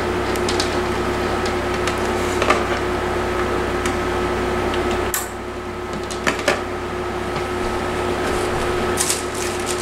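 Scattered clicks and light knocks of a plastic cordless phone base and its cords being handled, over a steady electrical hum; the low part of the hum drops away about five seconds in.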